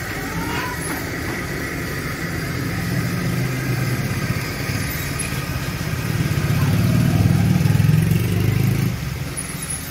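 A vehicle engine running close by, with street noise around it. It grows louder for about three seconds in the second half, then drops away about a second before the end.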